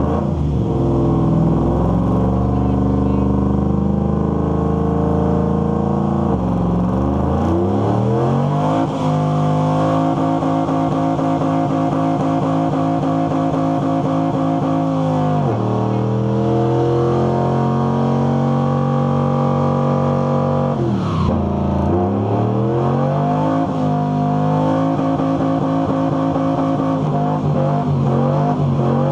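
Pickup truck engine revved hard and held at high revs during a burnout, spinning the rear tyres. The pitch climbs over several seconds and holds high, drops sharply twice, about fifteen seconds in and again about twenty-one seconds in, and climbs back each time.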